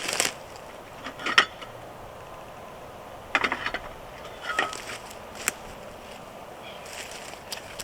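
Scattered metallic clicks and clacks of equipment being handled: a sharp clack about a second and a half in, then a short rattling run of clicks a couple of seconds later, and a few single clicks after it.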